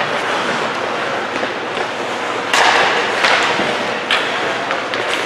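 Ice hockey play in a rink: a steady din with several sharp knocks of puck, sticks and boards, the loudest about two and a half seconds in.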